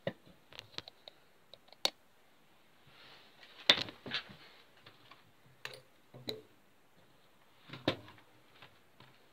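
Scattered sharp clicks and knocks of plastic as the Packard Bell EasyNote TJ75 laptop's stripped top case is handled on the table. The loudest cluster is about four seconds in, and another comes near the end.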